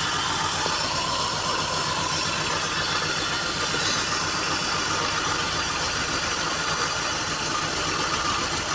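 BMW engine idling steadily with a misfire, during a coil-by-coil check: the ignition coils on cylinders 2 and 6 are not firing.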